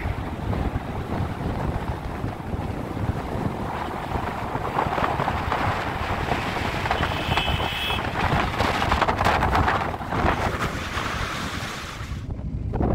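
Wind buffeting the microphone while filming from a moving car, over the low rumble of the car on the road. A brief high squeak about seven seconds in, and the sound drops suddenly near the end.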